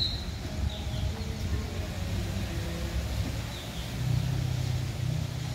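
Low, steady engine rumble that swells a little about four seconds in, with a few short, high bird chirps over it.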